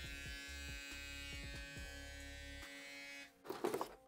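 Stylecraft Instinct X cordless hair clipper running with a steady electric buzz that cuts off about three seconds in, followed near the end by a short, louder burst of rustling noise.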